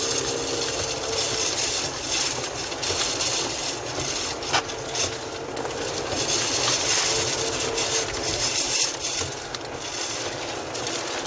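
Steady road and wind noise inside a car moving along a wet highway, with a few scattered light taps.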